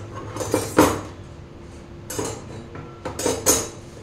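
Kitchen utensils and cookware clattering: a spoon and pots knocking and clinking in a handful of sharp strikes, the loudest just under a second in and a quick cluster near the end.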